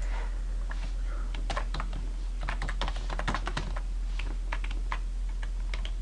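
Typing on a computer keyboard: an uneven run of key clicks starting about a second and a half in, over a steady low hum.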